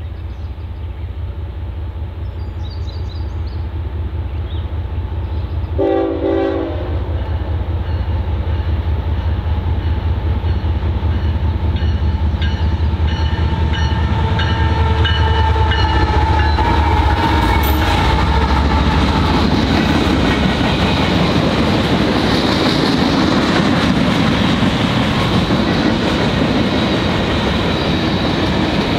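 CSX freight train's diesel locomotives rumbling louder as they approach. The horn sounds briefly about six seconds in, then in longer blasts whose pitch drops as the locomotives pass. After that comes the steady rolling and clatter of freight cars over the rails.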